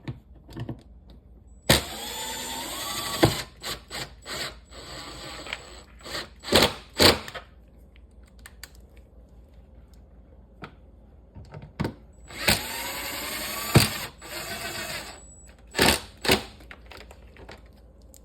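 Cordless impact driver with a magnetic bit holder driving screws back in, two runs each starting with a rising motor whine, with clicks and knocks of handling between runs.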